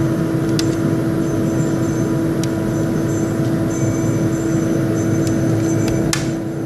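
A steady motor-like hum at one constant pitch, with a few sharp clicks.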